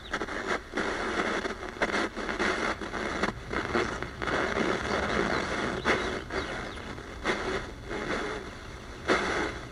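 Hiss and static from the speaker of a 5 Core T-291 analog radio on its shortwave band as the tuning knob is turned, broken every second or so by brief dropouts and faint snatches of signal. The shortwave reception is poor, which the owner calls absolutely useless, with a noise that sounds almost like FM being decoded.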